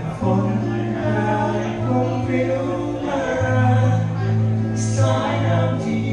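Live acoustic band: a man singing into a microphone over two acoustic guitars.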